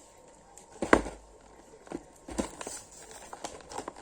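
Handling of a plastic toy and its packaging: a sharp knock about a second in, a softer one a little later, and light clicks and rustles in between.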